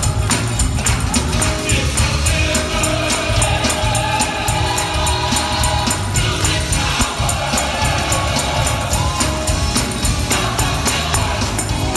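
Gospel music: a choir singing over a steady beat.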